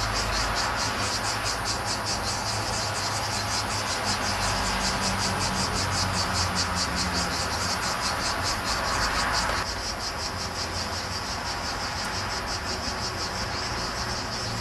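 Cicadas singing in a fast, even pulsing rhythm of several pulses a second, over a steady hiss that drops away about ten seconds in.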